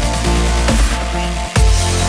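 Background electronic dance music in a dubstep style, with heavy bass and a strong steady beat.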